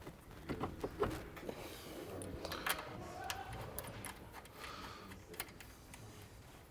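Faint, irregular metallic clicks and ticks of a wrench working the tie rod end's ball-joint nut onto a BMW steering knuckle, a few slightly louder clicks within the first second or so and again near the middle.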